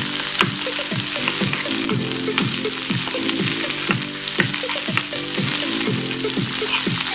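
Sliced onions and garlic sizzling in hot oil in a frying pan, stirred with a metal spoon in regular strokes about twice a second.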